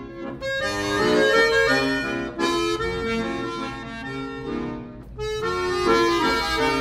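Instrumental background music: a melodic tune of held notes that change in steps, with short breaks about a third of a second in and about five seconds in.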